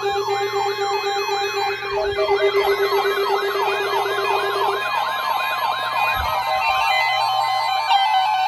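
Electronic siren tones yelping: several fast rising-and-falling sweeps layered over one another, over a steady lower tone that stops about five seconds in.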